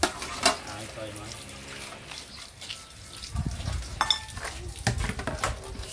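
Water running from an outdoor tap and splashing while plastic plates are rinsed under it, with several sharp knocks of the plates against each other and the basin.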